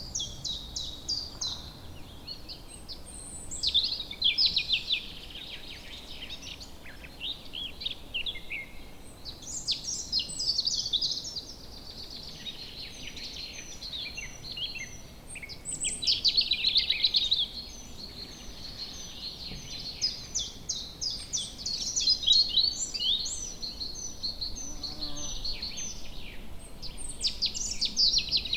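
Woodland birdsong: several songbirds singing at once with rapid chirping trills and short whistled notes. Louder phrases come and go every few seconds over a faint steady background hiss.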